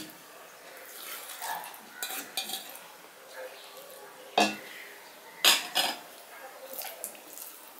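Stainless-steel dishes clinking as vegetable curry is served onto a steel plate and worked into rice by hand. Soft scraping and squishing run underneath, with one sharp metallic clink about four seconds in and two more in quick succession about a second later.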